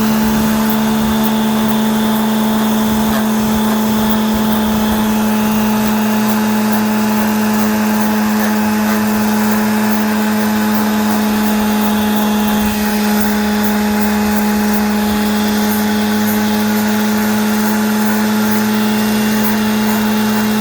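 Electric palm sander running steadily, with a strong even hum and a rasping hiss, as it sands dry skin off the heels.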